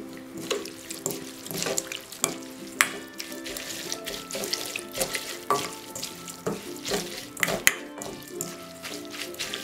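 A spatula tossing wet sliced beef tripe and herbs in a stainless steel bowl. It makes irregular wet squelches and sharp scrapes and clicks against the metal, starting about half a second in, over soft background music.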